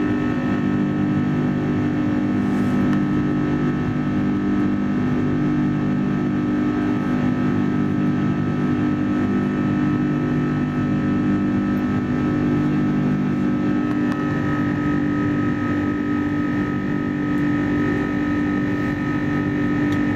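Airbus A330 jet engines heard from inside the cabin during the climb after takeoff: a steady deep hum with a hiss of engine noise and airflow, and thin whining tones above it that grow stronger about fourteen seconds in.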